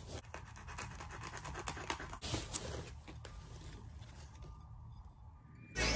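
A cardboard shipping box and its packaging being worked open by hand: irregular scratching, rustling and small clicks. Music starts abruptly near the end.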